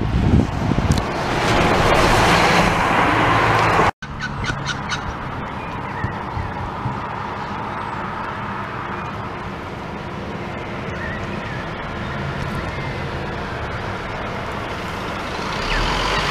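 City bus passing with its tyres hissing on a wet road, swelling over the first few seconds. After a sudden cut, a steady engine hum from another bus approaching, getting louder near the end as it draws close.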